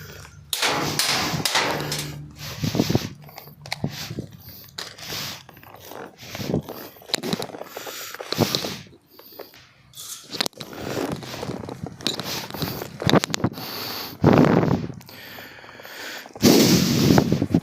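Rustling and scraping of clothing and gear against a body-worn microphone as the wearer moves, with scattered sharp clicks and pops. There is heavy handling noise about 14 s in and again about 16.5 s in.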